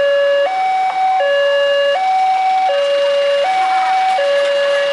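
Railway level-crossing warning alarm: an electronic two-tone signal alternating between a lower and a higher pitch about every three-quarters of a second, sounding while the crossing lights flash and the barrier lowers for an approaching train.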